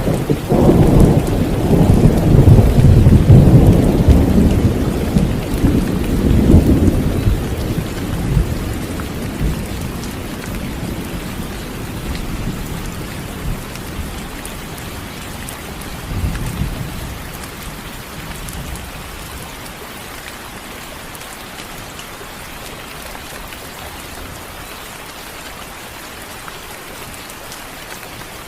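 Thunder rumbling loudly at the start and fading over several seconds, then a softer rumble about halfway through, over steady rain falling throughout.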